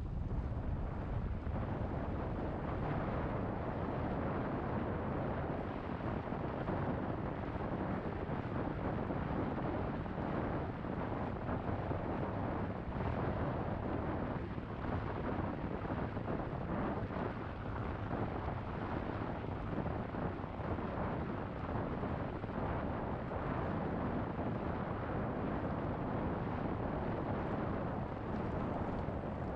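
Steady wind noise buffeting the microphone of a camera mounted on a moving bicycle.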